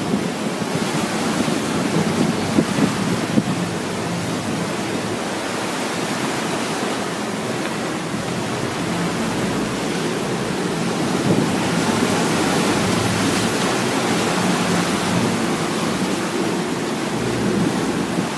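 Steady rush of churning water from a fishing boat's wake while the boat is underway, with wind buffeting the microphone.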